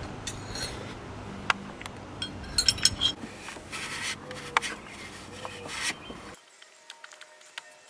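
Hand tools and metal parts clinking and rubbing, with a cluster of sharp clinks about three seconds in. It cuts off abruptly near the end, leaving a faint steady background.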